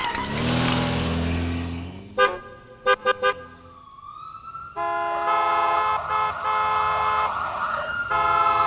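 A siren wailing slowly up and down, under sustained horn-like tones that break off and start again several times. Before the wail there is a low drone, then a few short toots about two seconds in.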